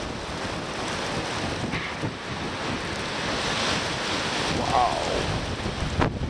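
Strong, gusty wind blowing hard across the microphone in 65 mph gusts. A short pitched sound comes about five seconds in, and a sharp click just before the end.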